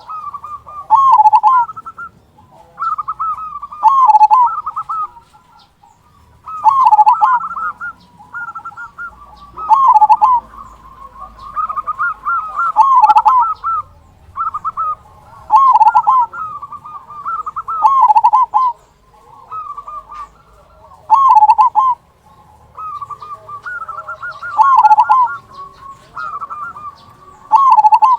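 Local zebra dove (perkutut) singing: a run of quick, warbling coos repeated every two to three seconds, in the deep 'kung' style prized in the bird.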